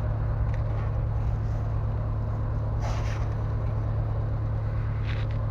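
A steady low mechanical hum, with a couple of faint clicks about three seconds in and again near the end.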